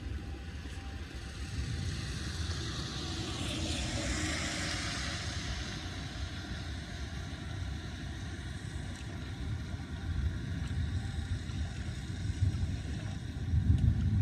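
Floodwater draining down an unclogged street storm drain: a steady rushing rumble. A louder hiss swells about four seconds in, and heavier low thumps come near the end.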